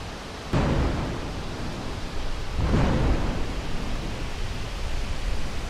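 Storm wind gusting through palm trees and buffeting the microphone with a low rumble, a steady rush that surges sharply about half a second in and again a couple of seconds later.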